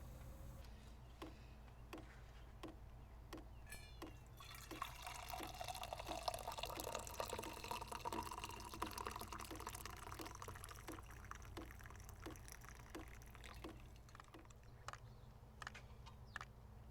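Liquid being poured into a container for about nine seconds, starting about four and a half seconds in. A faint, regular ticking of about one and a half ticks a second runs underneath.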